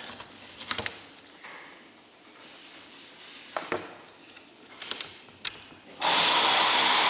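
Scattered clicks, scrapes and knocks of hand work on a bus window frame as the old rubber seal is pulled out. About six seconds in, a loud steady rushing noise like a blower starts suddenly and carries on.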